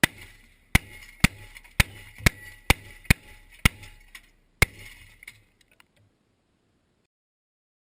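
Nine sharp cracks or clicks, about half a second apart at an uneven pace, each with a brief high ring. The last one comes just before five seconds in, and the sound dies away soon after.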